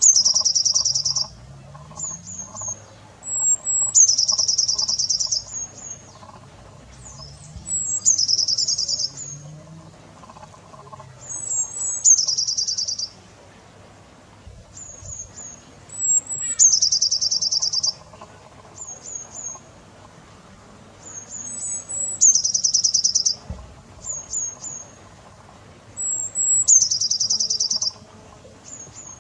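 A songbird singing the same phrase over and over, about every four seconds: a few quick, very high notes followed by a buzzy trill lasting about a second.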